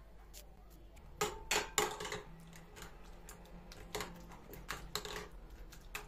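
Metal spoon clinking and scraping against a cut-glass bowl while stirring a soft butter and egg mixture: irregular clinks, a quick cluster about a second in, then scattered ones.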